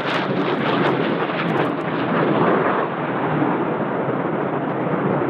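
A loud, steady rushing roar with faint crackles in the first two seconds, easing slightly about three seconds in.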